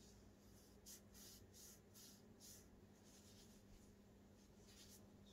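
Faint scratchy rubbing of knit gloves against a 4th-generation Echo Dot's fabric-covered shell as it is turned in the hands: a string of short scrapes over a low steady hum.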